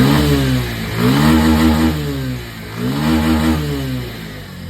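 Bajaj Pulsar 150 BS6 single-cylinder engine revved three times by the throttle, each rev rising, holding briefly and dropping back toward idle. It revs cleanly without misfiring, after a fuel filter change and a throttle body cleaning.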